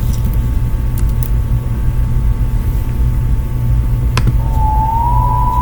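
Steady low rumble, then a click about four seconds in and an emergency alert siren tone starting, rising slightly in pitch and then holding: the opening of a campus EAS alert.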